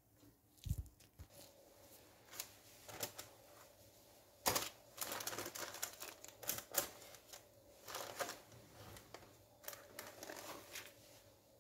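Metal offset spatula spreading thick cake batter in a parchment-lined baking tray: irregular scrapes and light clicks against the tray and its paper lining, with a dull thud about a second in.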